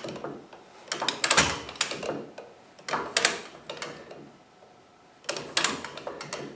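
Torque wrench ratcheting as the lower ball joint nut is tightened: three bursts of quick metallic clicks, one for each stroke of the handle, about two seconds apart.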